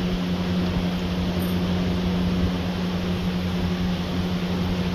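Electric fan motor running steadily: a constant low mains hum under a rush of moving air.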